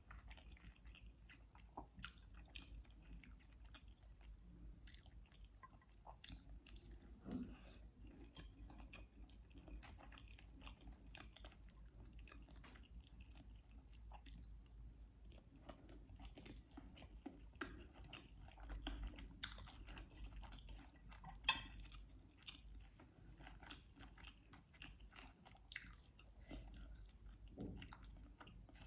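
A person chewing food close to the microphone: soft eating sounds, with small wet clicks scattered throughout and a sharper one about three-quarters through.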